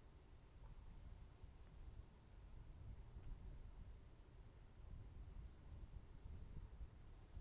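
Faint cricket chirping: short high chirps, singly and in twos and threes, over a low rumble of wind on the microphone.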